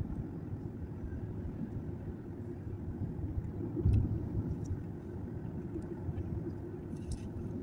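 Steady low rumble of a moving car's engine and tyres on the road, heard inside the cabin, with a brief louder thump about four seconds in.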